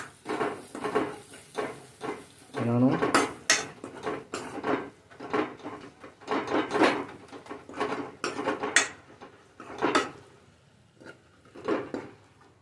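A steel ladle scraping and clanking against a metal kadai in a run of short, irregular strokes as the spiced onion masala is stirred and fried.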